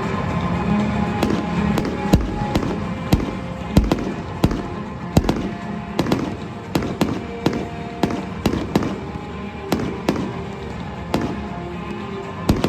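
Fireworks bursting in quick, irregular succession: sharp bangs throughout, with several deep booms in the first half, over music playing with the display.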